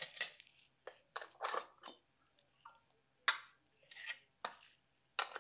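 Metal canning lids and screw bands clicking and scraping on the glass rims of mason jars as lids are set on and bands screwed down finger tight; a run of short, irregular clicks and scrapes.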